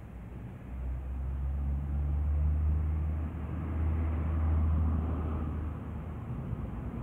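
Low, steady rumble of a motor vehicle engine running nearby, over faint outdoor background noise.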